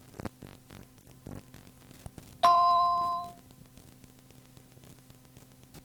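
Cueing chime on a cassette of pre-recorded answering-machine messages: a single bell-like ding with two clear tones, about a second long and fading out, the signal to start the answering machine recording. Faint tape hum and small clicks around it.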